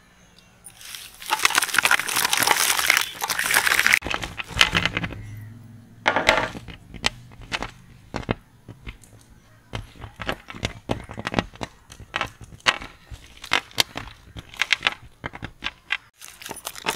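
Plastic-wrapped chocolate bars tipped out in a heap: a few seconds of dense crinkling rustle, then many scattered light clicks and taps as single packets drop and land.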